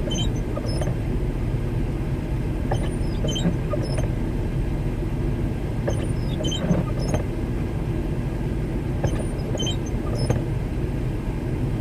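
Vehicle engine idling, a steady low rumble heard from inside the cab, with a few faint scattered clicks.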